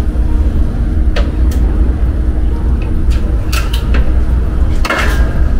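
Several short metallic knocks and clicks from car body parts and clamps being handled, the strongest near the end, over a steady low hum.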